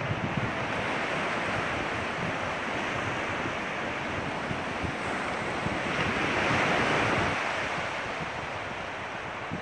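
Sea surf breaking and washing up the beach, swelling about six to seven seconds in, with gusty wind noise on the microphone.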